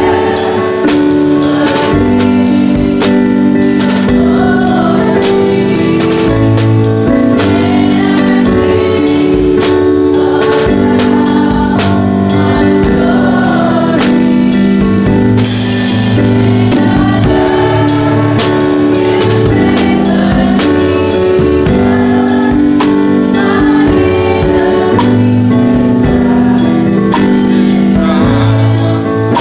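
Gospel music with singing over held keyboard chords, and a drum kit keeping time with steady snare and cymbal strokes.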